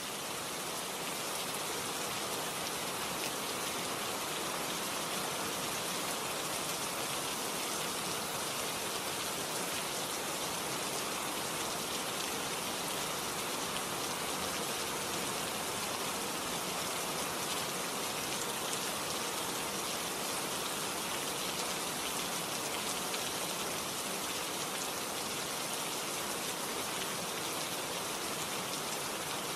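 Steady, even rain-like hiss that holds one level throughout, with no separate snaps or knocks standing out.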